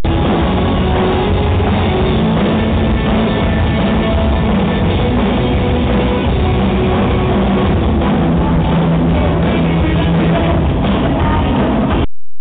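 Live rock band playing loud: electric guitars and a drum kit.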